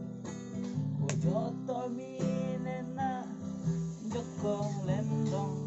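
Acoustic guitar strummed in steady chords, with a man singing a slow song in long, wavering held notes.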